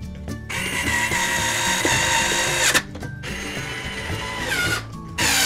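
Power drill whining in runs, slowing with a falling pitch and cutting off about three seconds in and again near the end, over background music with a steady beat.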